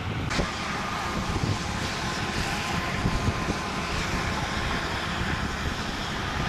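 Wind rumbling on the microphone over a steady outdoor hiss, which grows abruptly louder in the highs about a third of a second in.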